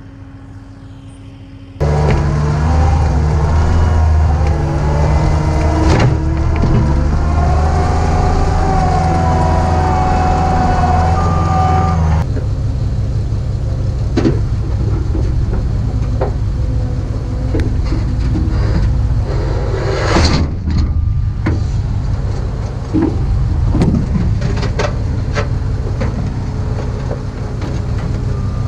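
Cat 279D compact track loader's diesel engine running, starting abruptly about two seconds in with shifting whines over it. About twelve seconds in it drops to a lower steady rumble with scattered clanks and squeaks, which the owner puts down to bucket pins that need grease.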